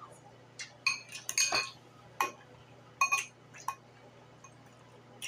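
Metal fork clinking and scraping against a glass bowl of collard greens, about half a dozen short ringing clinks in the first four seconds.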